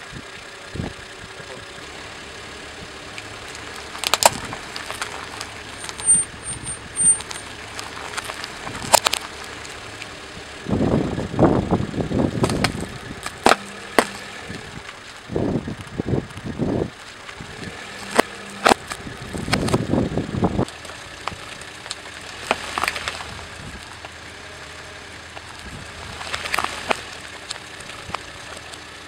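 A car tyre rolling slowly over small objects laid in a row, first plums, squashing and cracking them with sharp pops and a stretch of dense crunching, over the car's idling engine.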